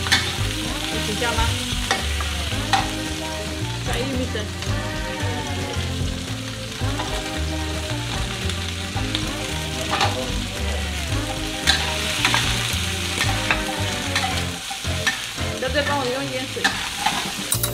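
Sliced bell peppers sizzling as they are stir-fried in a stainless-steel wok, with a metal spatula tossing them and now and then knocking and scraping against the pan.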